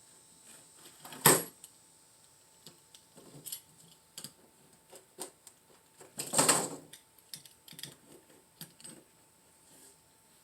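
Spline roller tool pushing rubber spline into the groove of a window screen frame: scattered small clicks and taps, with two louder, short rasping rushes about a second in and again around the middle.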